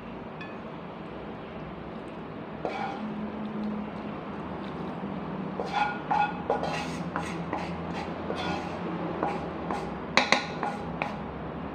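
Metal spatula scraping and clinking against a frying pan as cooked minced pork is tipped out onto a glass plate. The clinks come thick and fast from about halfway through, with two sharper knocks near the end, over a steady low hum.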